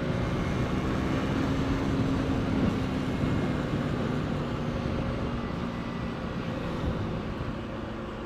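Motorcycle engine running at a steady cruise with wind and road noise, easing off gently in the second half.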